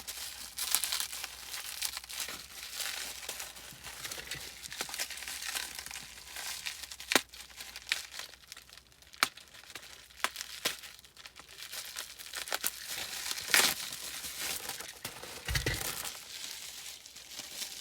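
Plastic packaging crinkling and rustling as it is handled and pulled apart, with a few sharper crackles.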